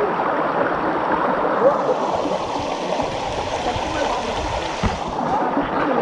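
Steady rush of stream water at the waterfall, with faint distant voices of people over it.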